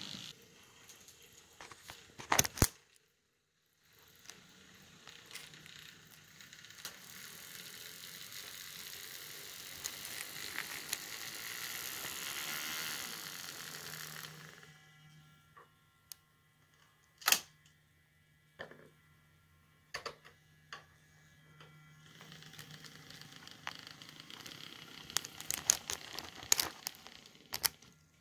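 Model diesel locomotives running on a model railroad: a rushing wheel-and-motor noise swells and fades as a unit passes close, then a low steady motor hum with scattered clicks, and a burst of clicks near the end, from wheels over rail joints and switches.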